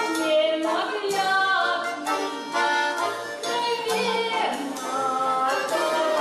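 Music: a song, with a singing voice over instrumental accompaniment.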